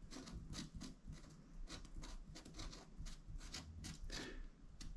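Marker pen writing on the textured fiberglass hull: a quick, irregular run of short faint strokes as letters are drawn.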